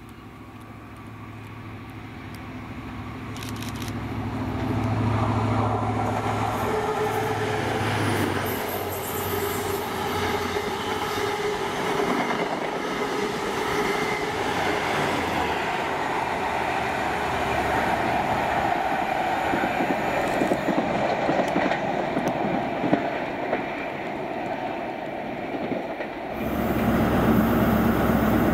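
HST (InterCity 125) diesel train with a Class 43 power car approaching and passing along the platform. The engine grows louder over the first few seconds, then the coaches rumble and clatter past on the rails. Near the end it switches to the steady low hum of a Class 43 power car standing at a platform.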